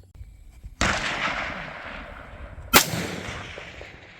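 Two rifle shots about two seconds apart, the second sharper and louder, each followed by a long echo dying away down the range.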